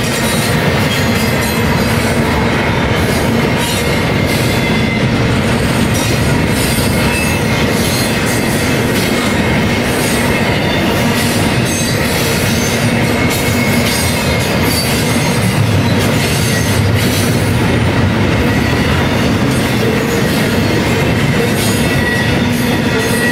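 Double-stack intermodal freight train's loaded well cars rolling steadily past, wheels rumbling and clicking over the rails, with a thin wheel squeal running through it.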